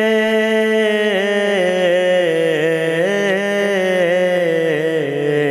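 Naat singing: a long sung note held for about a second, then drawn out in a wavering, ornamented melisma whose pitch sinks lower near the end.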